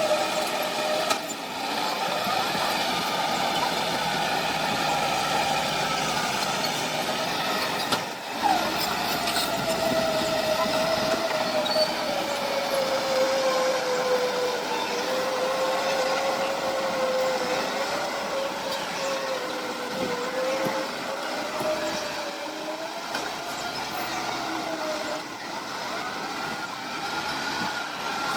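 Heavy earthmoving machinery running with a steady high whine that slowly sinks and rises in pitch, and a short knock about eight seconds in.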